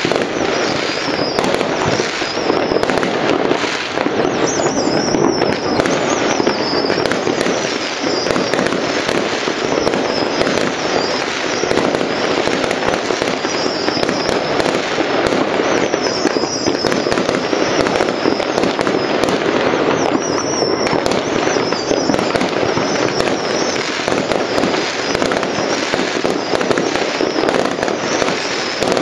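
Many fireworks and firecrackers going off at once across a city: a continuous, dense rattle of small bangs and crackles with no pause.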